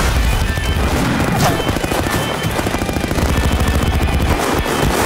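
Rapid gunfire, shot after shot in quick succession, mixed with loud trailer music.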